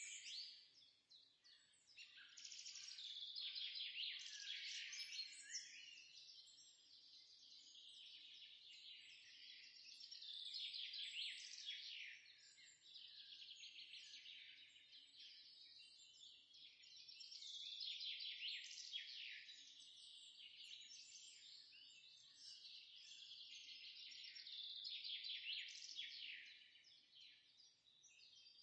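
Faint chorus of songbirds chirping and trilling, swelling and fading every few seconds.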